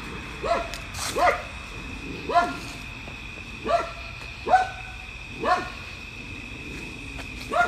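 A dog barking in alert, about eight single barks spaced irregularly about a second apart, each with a short falling pitch.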